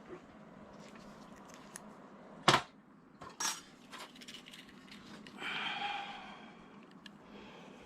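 Soldering-bench handling noise: light metallic clinks and taps, a sharp knock about two and a half seconds in and another about a second later, then a brief hiss a little past halfway.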